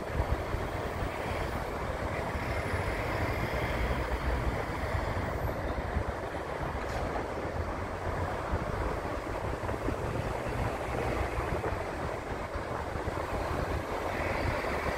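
Distant Boeing C-17 Globemaster III taxiing on its four turbofan jet engines: a steady low rumble and rush with a faint high whine.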